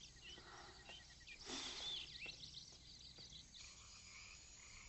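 Faint background ambience of birds chirping and insects, with short high chirps and gliding calls and a brief swell of rustling noise about one and a half seconds in.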